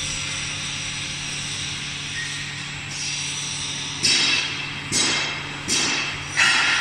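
Glass cutting machine running with a steady hum. From about four seconds in come sharp clinks of glass, roughly one a second.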